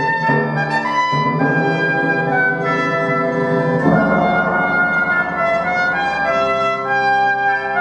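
Trumpet and pipe organ playing classical music together in held, stepwise notes. A fuller passage comes in about four seconds in.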